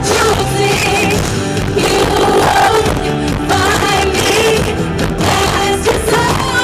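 Live amplified pop-rock band playing, with a singer holding long sung notes that carry no clear words.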